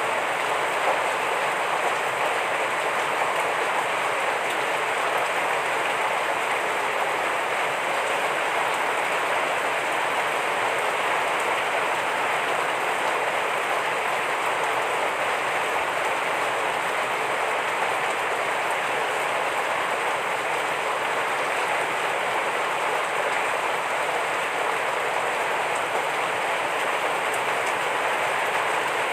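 Heavy rain falling steadily, a dense, even hiss of drops with no lulls.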